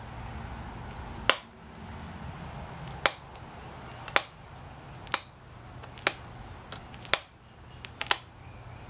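Pressure flaking Texas chert with a copper-tipped flaker: sharp clicks as flakes pop off the edge of the stone preform. There are seven loud clicks about a second apart, with a few fainter ones among the later ones.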